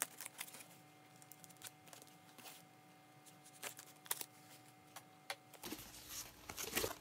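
Knife blade slitting packing tape along the seam of a cardboard box: faint scattered scrapes and clicks. Past the halfway mark the cut box is handled, with a low rumbling rub of hands on cardboard.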